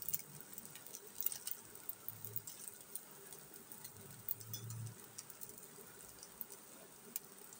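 Faint, scattered crackles and ticks from a pan of pasta cooking on a low gas flame, with two soft low rumbles in the middle.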